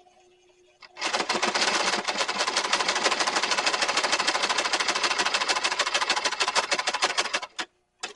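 Brother household sewing machine stitching through roughly 6-ounce leather at speed, a rapid, even run of needle strokes starting about a second in and stopping abruptly near the end, followed by one short burst.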